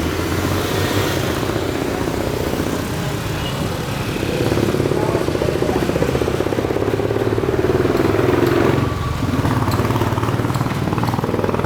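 An engine running steadily with a fast pulsing beat, getting louder about four seconds in.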